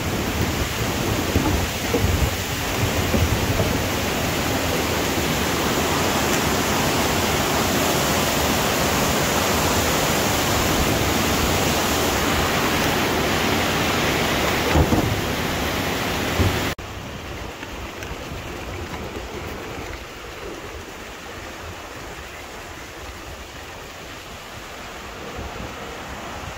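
Loud, steady rushing of whitewater river rapids tumbling over rocks. About seventeen seconds in, the sound cuts off abruptly to a much quieter, steady rushing.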